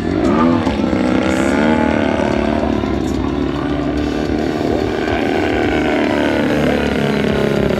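The 180cc ZDZ gas engine of a large radio-control aerobatic plane in flight. Its note sweeps up and down in pitch over the first couple of seconds, then runs at a steadier pitch with a slow dip and rise.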